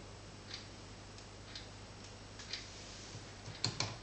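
Faint, irregular clicks, about one a second, with a small cluster of sharper clicks near the end, over a faint steady low hum.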